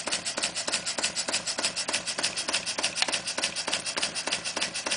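Clarkson model vertical steam engine running on compressed air at just over 200 rpm, near its slowest speed, its exhaust puffing in quick even beats, about seven a second.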